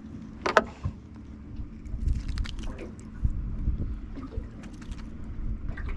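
Wind rumbling on the microphone and water moving around a small fishing boat. A sharp knock comes about half a second in, and a few short clicks and taps follow between two and three seconds in, the sounds of gear being handled in the boat.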